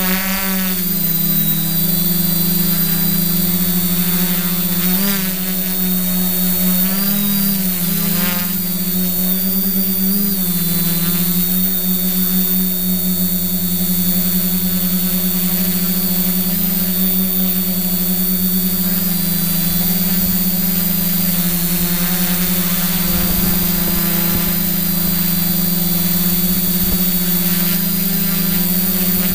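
Ironman carbon-fibre quadcopter's electric motors and carbon-fibre props whirring steadily in flight, with wind from the props, heard close from the on-board GoPro. The pitch dips and rises a few times in the first ten seconds, then holds steady.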